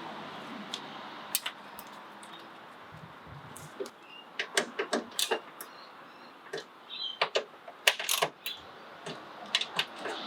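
Sharp metallic clicks and clinks in short clusters from a ¼-inch drive ratchet and 10 mm socket working the door mirror's mounting bolts.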